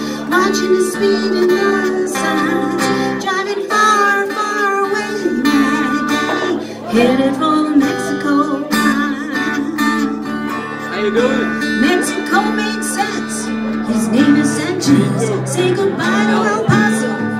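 Acoustic guitar strummed with a woman singing over it.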